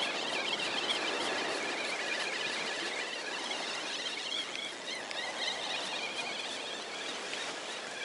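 Spinning reel being cranked while reeling in a small goby, with a steady squeaking whir, over a steady wash of noise from the sea.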